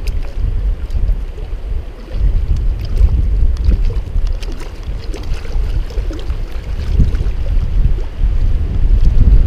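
Wind buffeting a GoPro HERO4 Silver's microphone: a loud, uneven low rumble that surges and dips, with faint scattered ticks above it.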